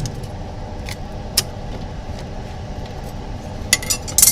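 A few sharp clicks and taps of a laminated phone screen assembly being handled, one about a second in and a quick cluster near the end, over a steady low hum.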